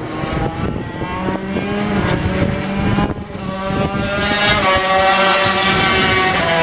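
A 1993 Honda NSR250 Grand Prix racer's two-stroke V-twin revving while standing, crackling and uneven at first. About four seconds in its pitch climbs and then holds higher.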